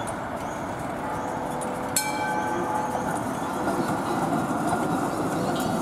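Tram running past on its rails, a steady rumble of wheels and running gear that grows a little louder as it comes close. About two seconds in, a single sharp metallic clang rings briefly.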